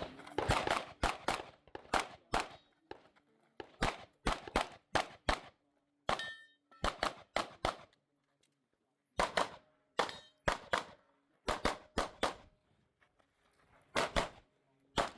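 Glock 17 Gen 5 9mm pistol fired in quick strings of shots, mostly paired, with short pauses between strings, during a practical-shooting stage. A brief metallic ring sounds about six seconds in.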